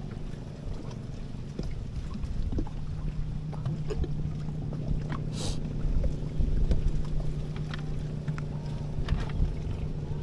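Steady low hum of a boat engine with wind rumbling on the microphone, and a short hiss about five and a half seconds in.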